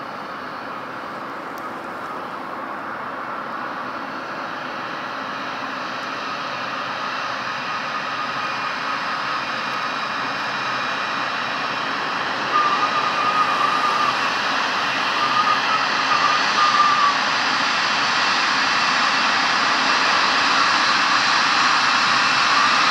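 Boeing 777F freighter's GE90 turbofan engines running at taxi power: a steady rushing noise with a high whine, growing louder as the jet taxis closer.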